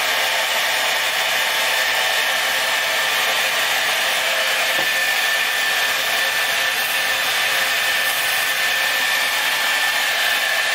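Handheld hair dryer on its low, cool setting blowing steadily, with a faint whine running through the rush of air, drying lace wig adhesive.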